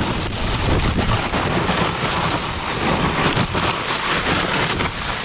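Strong wind rushing and buffeting the microphone: a loud, steady roar.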